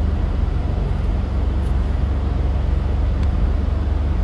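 Steady road noise inside a moving car: engine and tyres running on a wet road, a low rumble with a hiss over it.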